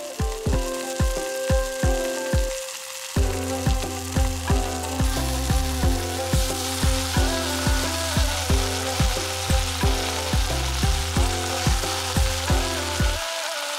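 Fermented soybean (kinima) and tomato sizzling as they fry in a stainless steel pot. The sizzle grows louder about five seconds in, as fresh garden cress drops into the hot pan, over background music with a steady beat.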